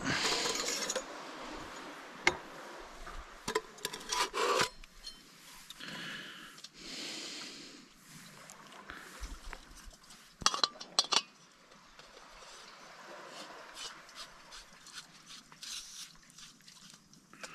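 Handling noise from a portable gas stove being unpacked and fitted onto its gas canister: rubbing and rustling, with scattered sharp plastic and metal clicks.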